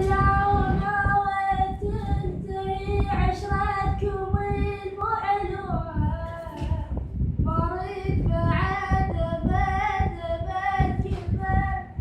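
A high voice singing unaccompanied in long, held, ornamented notes, with a short break about halfway through, over a low rumble.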